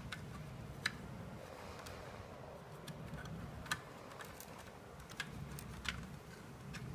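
Light, irregular clicks and taps of plastic wire connectors being handled and fitted, about half a dozen over a faint low hum.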